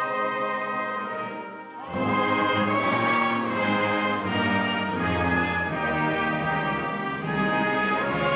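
A colliery brass band of cornets, horns, baritones and euphoniums plays sustained chords. About two seconds in, the music dips briefly, then the full band comes back in with the low brass.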